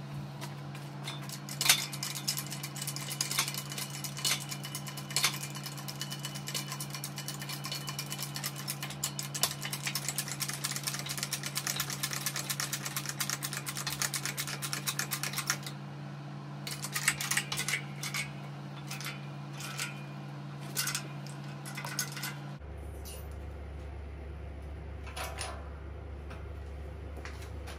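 Hand-pumped hydraulic bottle jack on a 20-ton shop press being worked under a load test. For about fifteen seconds there is a rapid run of metallic clicks and rattles, then scattered clicks as the pumping slows toward the handle's limit. A steady low hum sits underneath.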